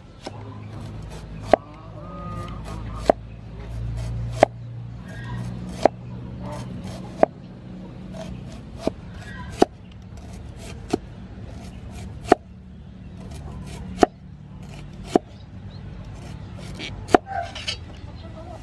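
Kitchen knife slicing red onions on a wooden chopping board: a sharp knock of the blade on the board about every second and a half, a dozen or so cuts in all.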